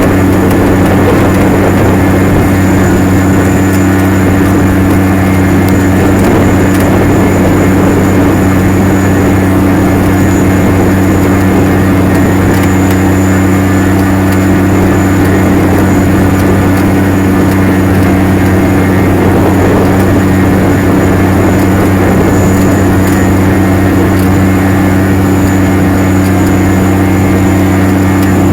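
Case IH Steiger STX 535 Quadtrac tractor's diesel engine running steadily under ploughing load: a deep, even drone with a thin high whine above it.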